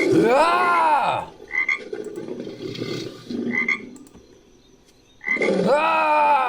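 Made-up creature call built from frog recordings: frog croaking with short high chirps about every two seconds. A loud pitched call rises then falls in the first second, and another loud call starts about five seconds in.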